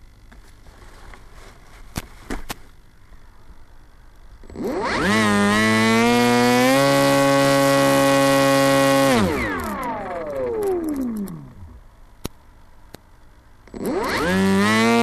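Electric motor and propeller of a small RC plane spinning up about five seconds in, running steadily at high power with a step up in pitch, then winding down. It spins up again near the end. A few light clicks come before the first run-up.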